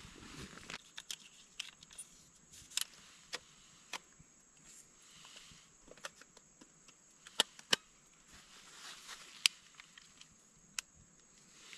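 Film camera being handled while its film is changed: scattered clicks and small knocks at irregular intervals, with a few sharper clicks past the middle.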